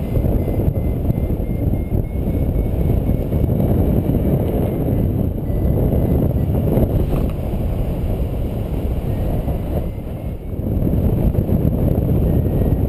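Wind buffeting a GoPro HD Hero's microphone in paragliding flight: a steady, loud low rumble that eases briefly about ten seconds in.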